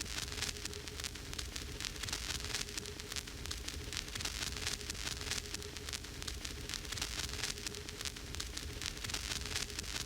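Vinyl record spinning on a turntable with no music on it: continuous surface crackle and fine pops over a steady hiss, with a low rumble and a faint steady hum underneath.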